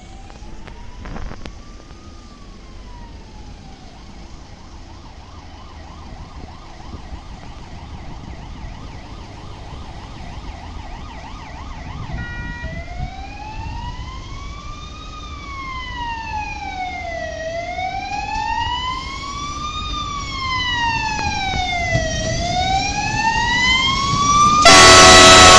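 An emergency-vehicle siren wails, slowly rising and falling, and grows much louder from about halfway. Under it, the rumble of an approaching MÁV Uzsgyi diesel multiple unit swells. Near the end the train's horn blasts very loud, a chord of several steady tones.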